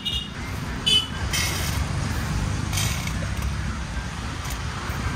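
Steady low rumble of street traffic, with a few short crinkles of a plastic bag being handled.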